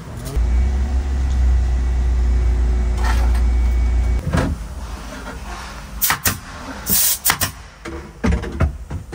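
A steady low hum for about the first four seconds, then stops abruptly. After that, a series of sharp snaps and knocks from work on a wooden cabinet drawer.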